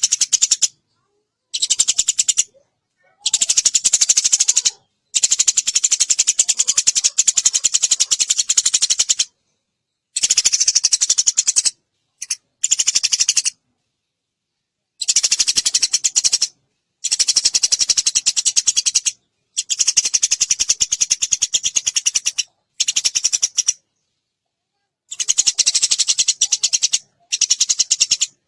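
Eurasian tree sparrow (burung gereja) chattering in fast, tightly packed high chirps. The chirping comes in bursts of one to four seconds, broken by short gaps of dead silence.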